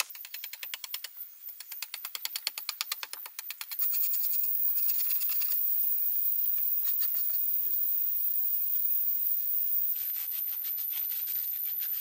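Machete blade scraping an earthen clay wall in quick repeated strokes. From about four seconds in, a steady high-pitched whine comes in and is louder than the scraping.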